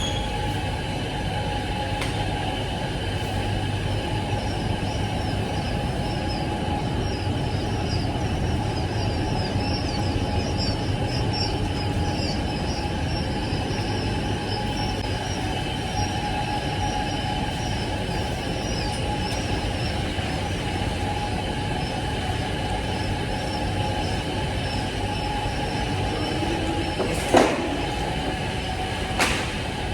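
Dense, continuous high-pitched peeping of many newly hatched Japanese quail chicks over a steady machine hum. Two sharp knocks near the end.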